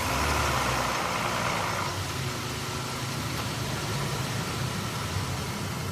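2017 Ram pickup's V6 engine idling just after starting. It is a little louder for the first second or two, then settles into a steady idle. It is being run briefly after an oil change so that the new oil filter fills with oil.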